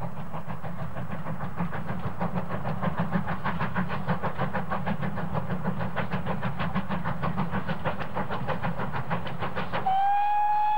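Great Western 0-6-0 steam locomotive running along the line with a rapid, even beat over a steady rumble. Near the end its whistle begins, a steady single-note blast.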